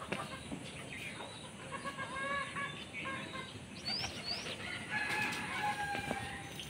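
Domestic chickens clucking and calling, with a longer held call near the end. Two quick, high, rising chirps come about four seconds in.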